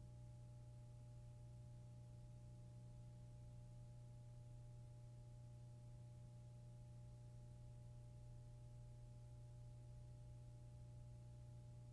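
Near silence: only a faint, steady low hum with light hiss.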